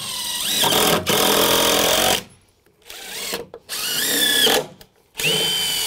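Cordless drill driving deck screws into wooden deck boards: three separate runs, the motor whine rising in pitch as each one starts. The first run lasts about two seconds, the second is shorter, and the third begins near the end.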